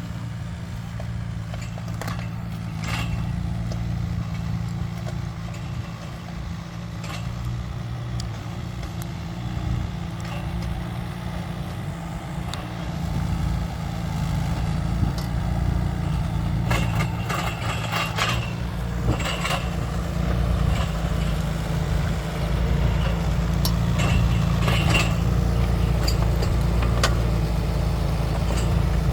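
Mini excavator's diesel engine running steadily, growing slowly louder, with occasional knocks and clanks from the machine at work.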